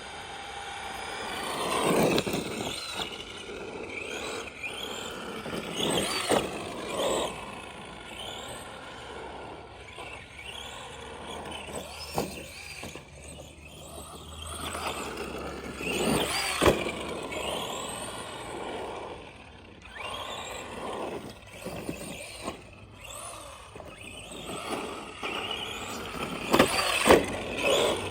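Arma Granite RC monster truck's 550 brushed electric motor and drivetrain whining, rising and falling in pitch over and over as the throttle is applied and released. Several sharp knocks and clatters come in between.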